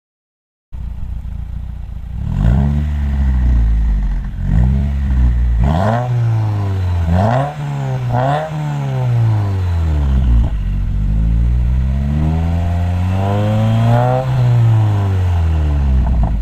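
2015 Subaru WRX's turbocharged flat-four, breathing through an Invidia Q300 cat-back exhaust and catless downpipe, being revved. It gives several quick blips that rise and fall, then one longer, slower climb in revs that falls back.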